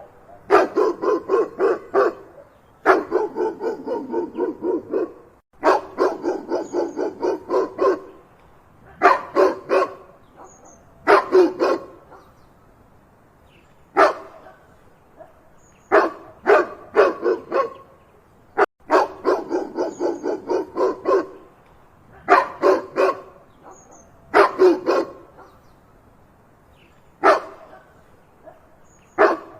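A dog barking loudly in rapid volleys of several barks each, with short pauses between volleys and one lone bark midway.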